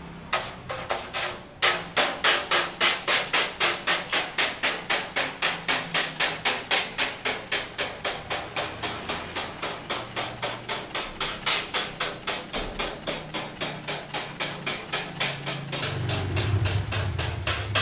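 Hand spray bottle squirting water in quick repeated squeezes, about four a second, onto a screen-printing screen, washing the unexposed emulsion out of the mesh to develop the stencil. A few slower squirts come first, then a steady run of them.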